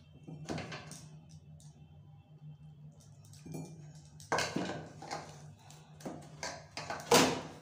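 Hand mixing and crumbling maize-flour dough in a steel plate: soft rustling with irregular clinks and scrapes of bangles and the plate. The loudest clinks come about four seconds in and near the end, over a low steady hum.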